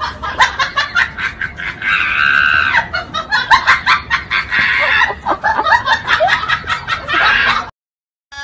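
A person laughing in quick, choppy bursts, with a longer high-pitched squeal about two seconds in. It stops abruptly near the end.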